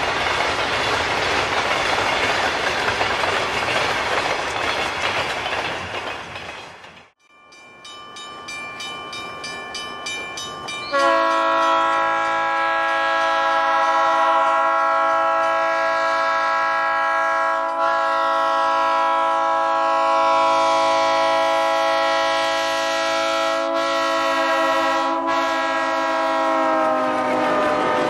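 Freight cars rolling past with steady wheel clatter. Then a Green Bay & Western Alco diesel locomotive's horn is heard: faint at first and growing louder, then one long blast of several tones held together from about 11 seconds in. The horn drops in pitch near the end as the locomotives pass.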